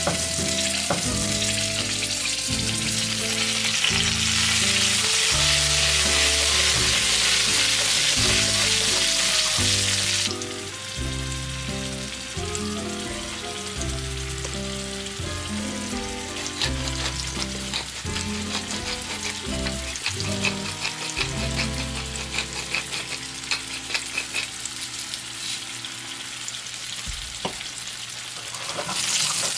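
Baby potatoes and garlic frying in oil in a stainless steel pan: a loud sizzle for about the first ten seconds, then a lighter sizzle with scattered pops. Background music with a bass line plays underneath.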